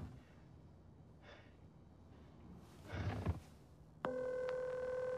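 Telephone ringback tone of an outgoing call played through a small loudspeaker: a steady buzzing ring that has been silent and starts again about four seconds in, in an on-off ringing cadence. Before it, a short breathy noise near three seconds.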